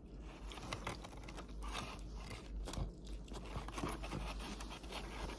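Close-up chewing of a big bite of a lobster roll sandwich: soft irregular crunching and mouth sounds.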